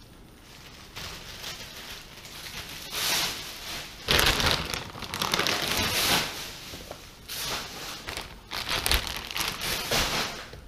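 Plastic grocery bags rustling and crinkling in irregular bursts as food packages are handled and packed into them.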